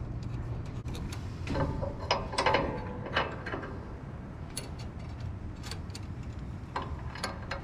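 Metal hardware clanking and clicking as a snow plow is hooked up to an ATV's winch and mount. There are irregular knocks in two clusters over a low steady hum.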